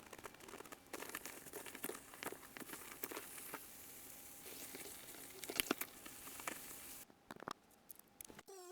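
Slime being handled: a steady run of small crinkly clicks and pops that drops away about seven seconds in.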